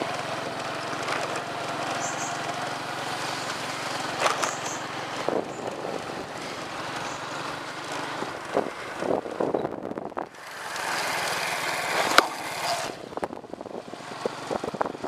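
A small engine running steadily for about the first five seconds, then fading away, while the ride goes on with scattered rattling knocks over the concrete path and wind on the microphone.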